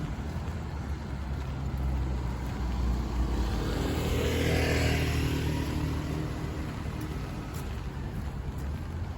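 A car passes by on a wet street, its engine and tyre hiss building to a peak about halfway through and then fading, over the steady hiss of rain.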